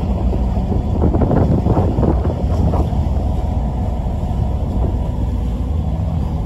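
Wind buffeting the microphone on the open deck of a moving ferry, over a low steady rumble from the ship.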